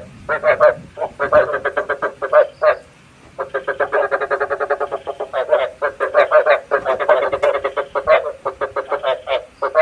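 Frogs croaking in rapid trains of pulses, a recording meant to be played as a lure call to draw frogs in for night trapping. The calls break off briefly about three seconds in, then resume.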